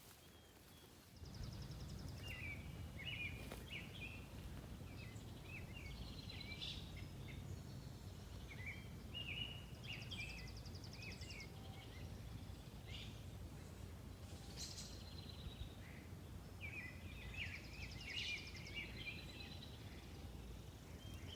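Several songbirds chirping and singing, with short chirps and a few quick trills, over a steady low rumble of outdoor background noise that starts about a second in.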